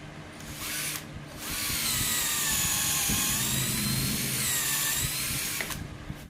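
Handheld electric power tool working wood: a short half-second burst, then after a brief pause a loud run of about four seconds, its motor whine sagging in pitch under load and recovering before it stops near the end.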